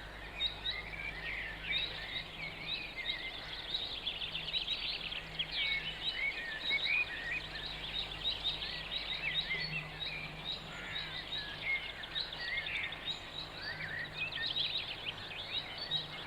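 Many small birds chirping and singing at once, overlapping calls and trills, over a faint steady low hum.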